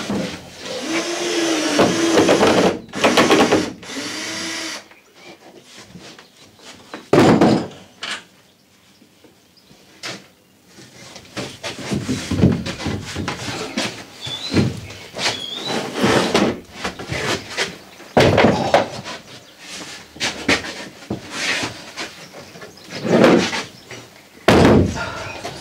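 Power drill-driver running in two short bursts in the first few seconds, its pitch rising and falling as it backs screws out of a plywood wall panel. After that come knocks, thuds and scraping as the plywood panel is freed and lifted down.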